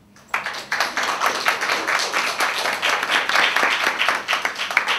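Audience applauding: a dense patter of many hands clapping that starts abruptly just after the start and dies away near the end.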